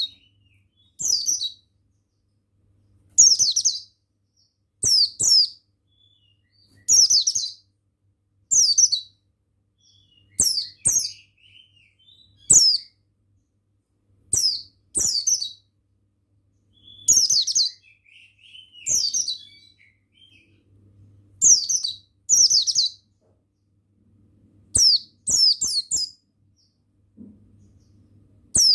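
Buxtoni white-eye (pleci) singing short bursts of high, quickly falling chirps, one burst about every second and a half to two seconds.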